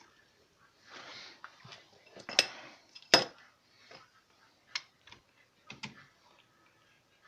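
Metal clinks and knocks of a wheel nut and wrench being worked onto a new wheel stud in the car's hub. About five separate strikes, each with a brief metallic ring, the loudest two near the middle.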